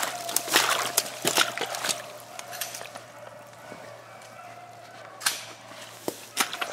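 Footsteps squelching through wet mud and soaked leaf litter, with crackles and rustles. They are busiest in the first two seconds, grow quieter, then pick up again near the end. A faint steady tone runs underneath.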